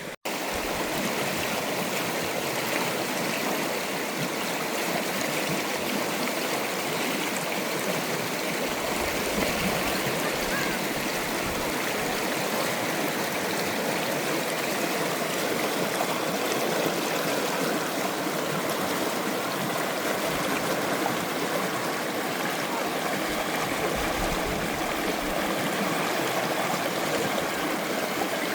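A forest stream or river running, a steady rush of flowing water that starts abruptly and holds even throughout.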